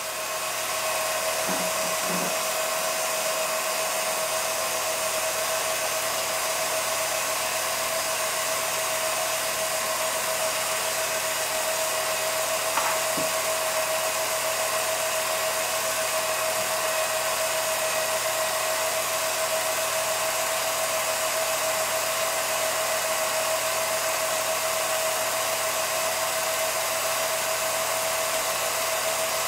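An 8mm film projector running: a steady motor hiss with a constant mid-pitched hum.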